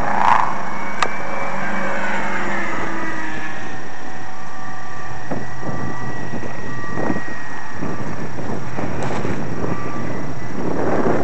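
GWS Corsair radio-controlled electric model plane flying high overhead: its motor and propeller give a thin, distant whine that sinks a little in pitch and then holds steady, under a constant rush of wind on the microphone. A single sharp click about a second in.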